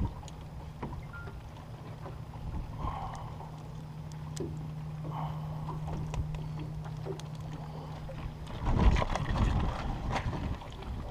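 A steady low hum with a few faint clicks of handling. About eight and a half seconds in the hum stops and a louder, noisy rumble takes over.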